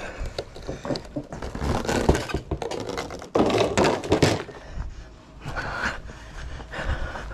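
Knocks and clatter of a white deck railing section being handled and carried, with a louder rattling stretch lasting about a second, starting about three and a half seconds in.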